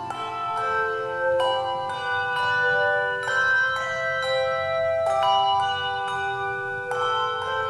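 Handbells played by a four-member bell quartet: a slow melody in chords, each struck chord ringing on and overlapping the next, with a new strike about every second.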